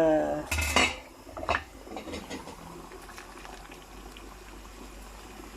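Pot of tomato and meat sauce bubbling steadily on the stove. Two sharp clanks of a utensil against the pot come in the first second and a half.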